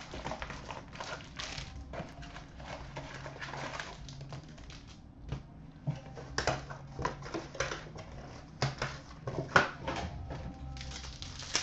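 Trading-card hobby box and foil card packs handled on a glass counter: rustling and crinkling of pack wrappers, with a quick run of sharp clicks and taps in the second half, over a steady low hum.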